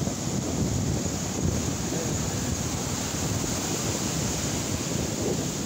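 Ocean surf breaking and washing ashore, a steady rushing noise, with wind rumbling on the microphone.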